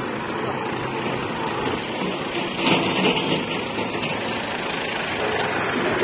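A John Deere tractor's diesel engine running steadily as it pulls a trolley loaded with soil, with a few sharp clicks around the middle.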